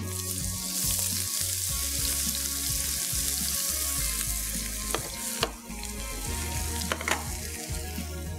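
Chopped green garlic dropped into hot vanaspati ghee in a frying pan, sizzling hard at once as it starts to sauté, then easing to a gentler sizzle. A few sharp knocks in the second half.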